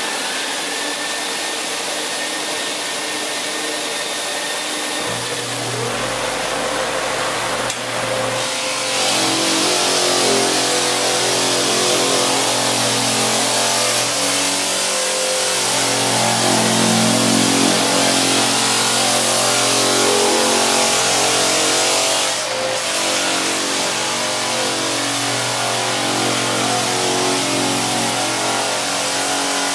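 A dust-containment vacuum runs steadily. About five seconds in, a Clark floor sander's motor starts with a low hum, and from about nine seconds it is sanding the polyurethane finish off a hardwood floor, loud and steady, with a brief dip a little after twenty seconds.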